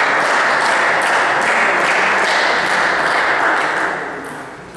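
Spectators applauding in a sports hall between points of a table tennis match, the clapping fading away about four seconds in.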